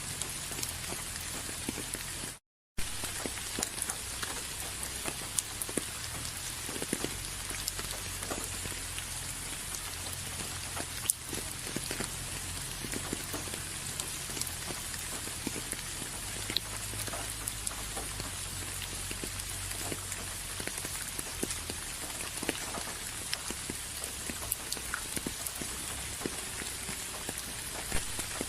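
Steady rain falling, with many individual drops tapping on a surface over a low rumble. About two and a half seconds in, the sound cuts out completely for a moment.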